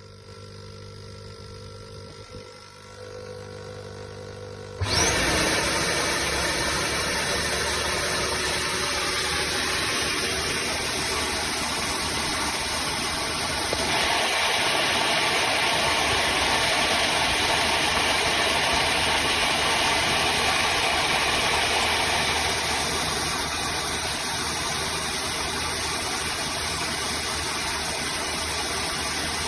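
Bissell CrossWave HydroSteam wet-dry floor cleaner running its self-cleaning cycle: after a few seconds of low hum, the motor switches on abruptly about five seconds in with a quick rising whine and then runs steadily and loudly. Its tone brightens partway through and it drops a little in level later on.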